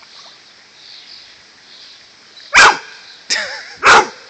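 A dog barking three times in quick succession in the second half, standing in shallow lake water and barking at seaweed it sees underwater.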